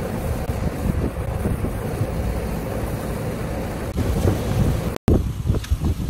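Water spraying from a hose onto a rooftop air-conditioner's condenser coil to rinse off the dirt, a steady hiss with wind buffeting the microphone. It cuts off abruptly about five seconds in, followed by a few knocks.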